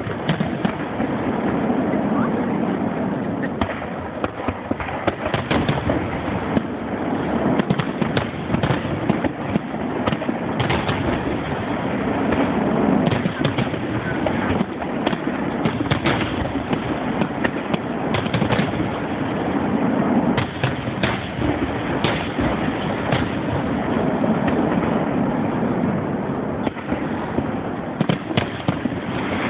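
Fireworks finale: aerial shells bursting in rapid, overlapping succession, a dense, unbroken barrage of bangs. Heard through a phone's microphone.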